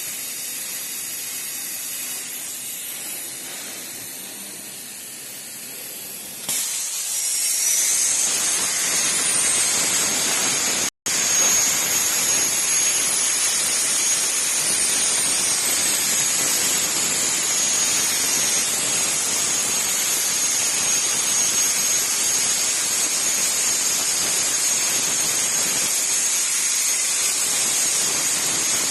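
Hypertherm HPR400XD plasma torch cutting on a CNC table. A quieter gas hiss runs first; about six and a half seconds in, the arc starts and a loud, steady hiss with a high, thin whistle runs on. It cuts out for an instant near eleven seconds.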